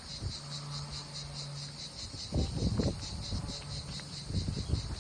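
Insects chirping in a steady, rapid pulsing rhythm, high-pitched and unbroken, with a few low rumbles about halfway through and again near the end.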